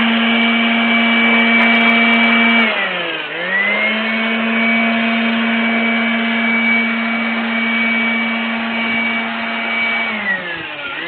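Blower motor running with a steady whine, twice slowing down in pitch and spinning back up to speed: once about three seconds in and again near the end.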